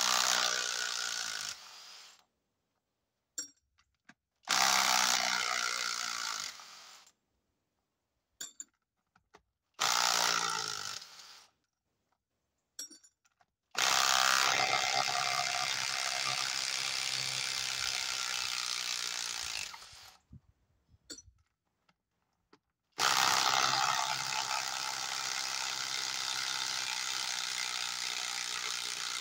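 Kobalt XTR 24-volt impact driver hammering in reverse, backing fasteners out of a log. It runs in five bursts, three short ones and then two long ones of about six seconds, each loudest as it starts.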